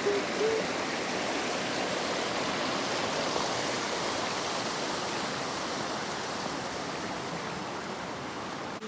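Creek water flowing steadily, a constant rushing of water.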